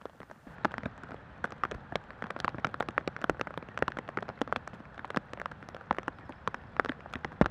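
Rain falling into shallow water over leaves and grass: many irregular drops plinking and pattering on the surface, several a second, over a light hiss.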